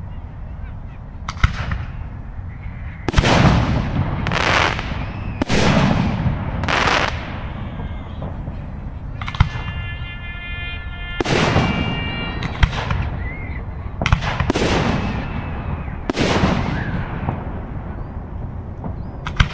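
Aerial firework shells bursting one after another: about ten loud bangs, each trailing off over a second or so. A held horn-like tone sounds for about three seconds midway.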